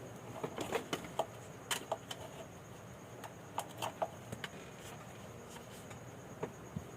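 Irregular small clicks and short scrapes of hand work on a motorcycle digital meter's trip button and plastic housing, in clusters with pauses between.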